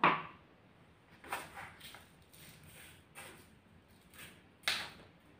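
Granulated sugar being spooned out of a glass jar into a blender jug: a handful of short, soft handling sounds, the loudest near the end.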